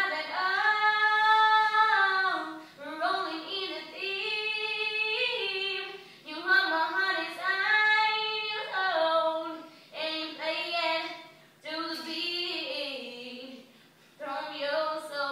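A female voice singing unaccompanied, holding and sliding between notes in phrases of two to three seconds with short breaths between them.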